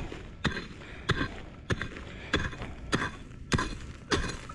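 Repeated strikes of a digging tool into the soil over a metal-detector target, about one every 0.6 seconds, seven in all.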